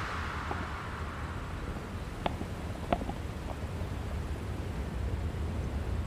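Low wind rumble on the microphone of a body-worn camera moving through dry woodland, with two sharp clicks about two and three seconds in.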